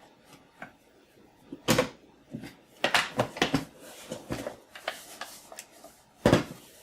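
Plastic Commodore 64 case halves being pressed together: a series of sharp clicks and knocks as the case's tabs snap into place, loudest just before 2 s, around 3 s and near the end.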